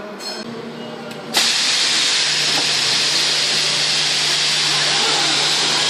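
Pneumatic hiss from a Kawasaki robot arm's air-driven gripper: about a second and a half in, a loud, steady hiss of compressed air starts suddenly and keeps going, with a steady low hum joining under it shortly after.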